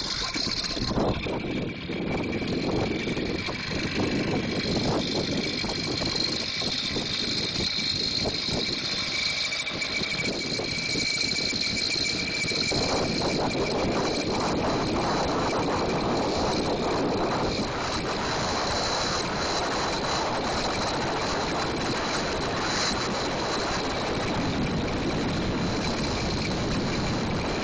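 The small gas motor of a motorized bicycle running as the bike is ridden, with a steady high whine. About halfway through, a denser rushing noise joins it, like wind growing as the bike picks up speed.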